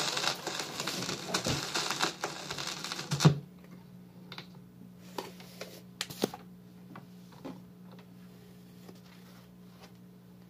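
Record playback on a turntable stops abruptly with a loud thump about three seconds in. What follows is a steady low hum with scattered clicks and light rustling as the vinyl record is handled and taken off the deck.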